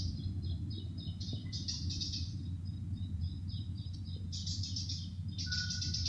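Small songbird chirping in quick, high trilled bursts, several times over, with a steady low hum underneath.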